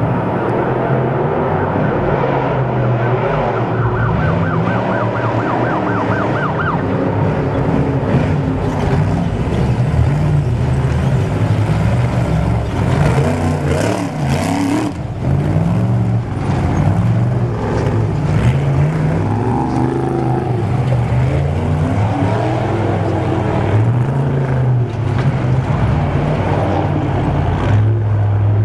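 A Trophy Truck's warning siren warbling quickly and cutting off about seven seconds in, over the race truck's engine running hard and revving up and down. The engine is loudest around the middle as the truck passes close.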